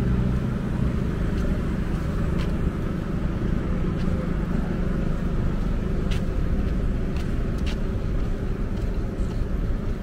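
Steady road traffic from passing cars, with an engine hum that fades in the first couple of seconds and a few faint clicks.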